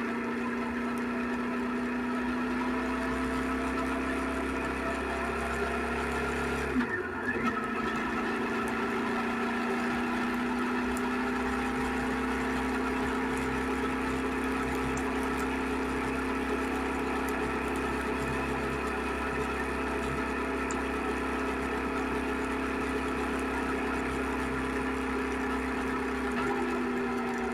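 Suzuki SV650X's 645 cc V-twin engine running at a steady speed, with a brief drop in pitch and loudness about seven seconds in before it settles back to the same steady note.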